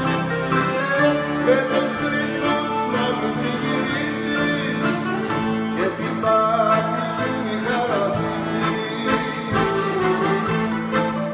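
Rebetiko ensemble of bouzouki, baglamas, guitar and accordion playing together: held accordion chords under plucked string melody lines.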